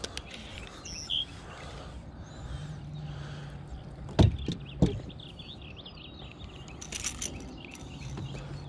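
Birds chirping and singing in the background, with two sharp knocks about halfway through, about half a second apart.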